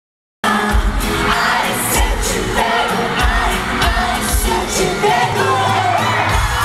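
Live pop music played loud over a concert sound system: male voices singing over a strong bass beat, with a crowd screaming along. It cuts in a moment after the start.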